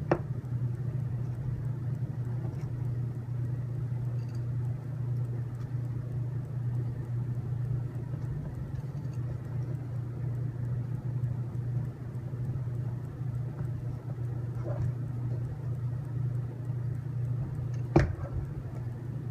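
Steady low background hum, with a sharp click just at the start, a fainter one about fifteen seconds in, and a loud sharp click near the end.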